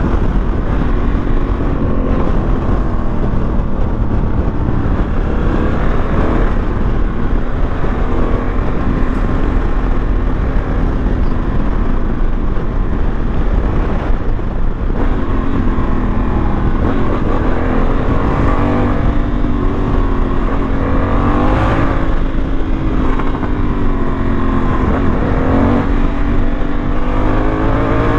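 Honda Africa Twin's parallel-twin engine running under way, its pitch rising and falling with the throttle and dipping at several gear changes, over a steady low rush of wind.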